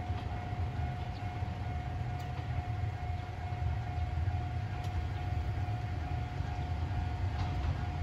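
Japanese level-crossing warning bell ringing steadily over a constant low rumble, while a Toyama Chiho Railway train approaches from the distance.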